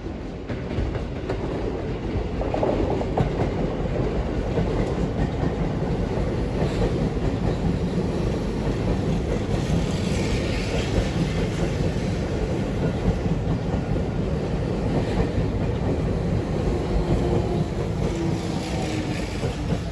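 Seibu Railway electric train running past, with a steady heavy rumble and clacking from the wheels over the rail joints that comes again every few seconds. A faint, slightly falling whine appears near the end.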